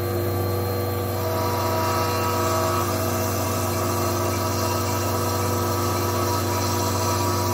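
TRAK QuikCell QCM-1 CNC milling machine cutting flat bar stock under flood coolant: the spindle and cutter run with a steady low hum and several steady whining tones, unchanging throughout.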